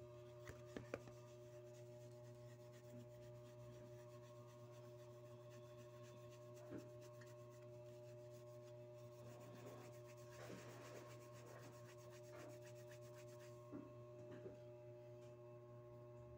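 Faint rubbing of a polishing cloth over brass badge and buckle, with a few light clicks of the metal pieces being handled, the loudest about a second in. A steady low hum runs underneath.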